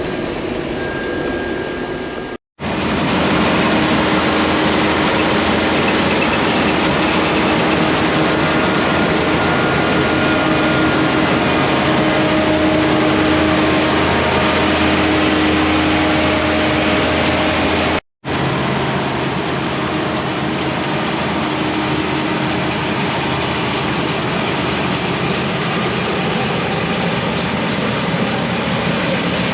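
Case IH 1480 combine running steadily under harvest load, a loud even machine din with a few steady whines over it. The sound drops out for an instant twice, about 2.5 and 18 seconds in.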